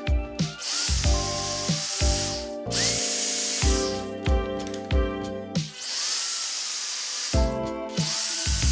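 Handheld power tool, drill-like, running in short bursts that start and stop several times, its motor whining up as it starts, over background music.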